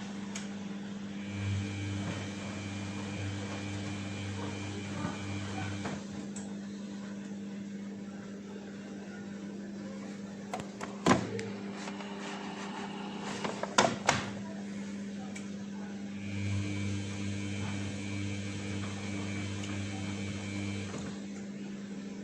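Samsung WF1600WCV front-loading washing machine on a 40° wash: the drum motor runs with a whine for about five seconds, stops for about ten, then runs again for about five near the end, over a steady hum. Two sharp knocks come in the pause, about eleven and fourteen seconds in.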